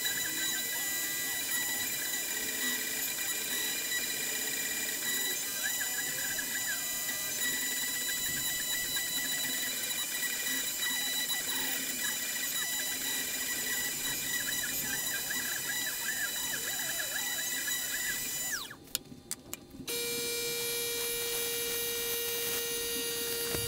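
CNC router's high-speed spindle motor running steadily with a high whine while the bit mills plywood, the cutting noise rough under the whine. Near the end the whine drops away for about a second, with a few clicks, and a lower steady hum follows.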